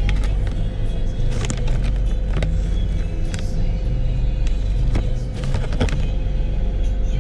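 Low steady rumble of a car cabin while the car stands in a queue, with music playing over it. There are scattered brief clicks and rustles.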